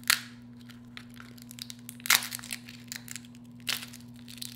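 Bites into crispy batter-fried lobster tail, close on the microphone: a sharp crunch right at the start, another about two seconds in and a third near the end, with smaller crackles between. A steady low hum sits underneath.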